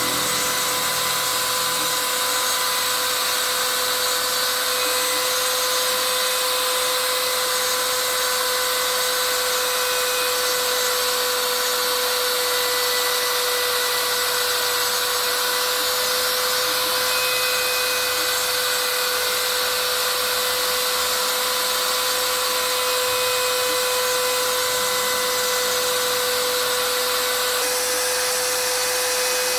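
DIY CNC machine's spindle motor running steadily: a constant whine over an even hiss. The hiss shifts slightly near the end.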